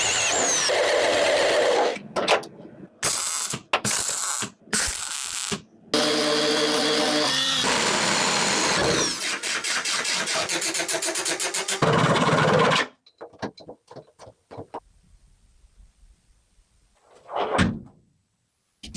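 A run of abruptly cut machine noise: a motor running with a steady pitch, then a fast, even pulsing, then a few softer knocks and clicks near the end.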